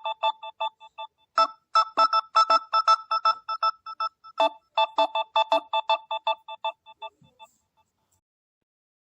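Samsung Galaxy A03s incoming-call ringtone playing: a melody of short notes in phrases that repeat about every three seconds, each phrase trailing off into quieter echoing repeats. It stops about seven seconds in.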